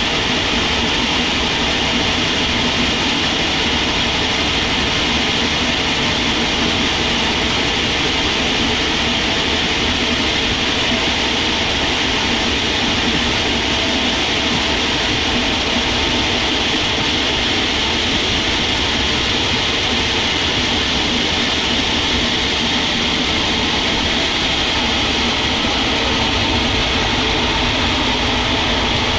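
Sawmill machinery running steadily with a continuous loud, even whir and hum.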